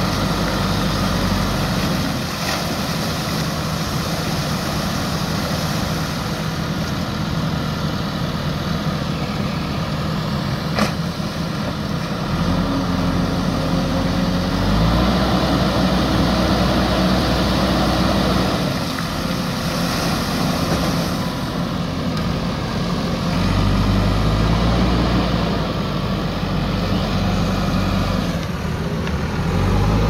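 JCB 3DX backhoe loader's diesel engine running, its note rising and falling several times as the loader arm works, with water splashing as the raised front bucket pours out river water.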